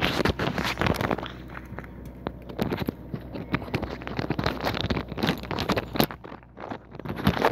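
Close rustling and many irregular small clicks as hands and clothing move right by the microphone while the hook and line are handled.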